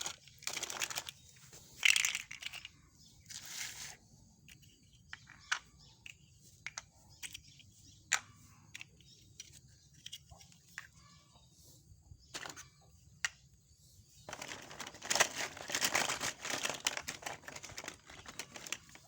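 Plastic toy train track pieces being handled and fitted together: bursts of crinkly plastic rustling with scattered sharp clicks, and a longer stretch of rustling from about 14 s in until near the end.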